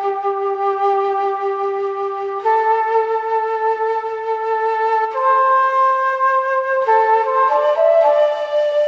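Background music of a flute playing a slow melody in long held notes, each lasting about two seconds, the melody climbing higher in the second half.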